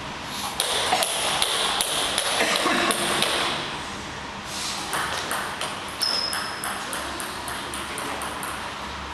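Table tennis ball clicking rapidly back and forth off paddles and the table during a rally, with a short lull about four seconds in. A brief high squeak about six seconds in.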